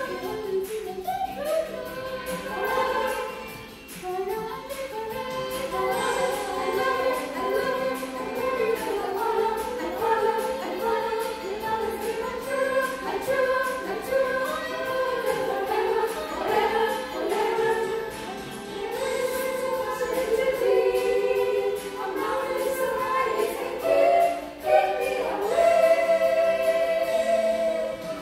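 A choir of voices singing a Christian song, continuous and melodic.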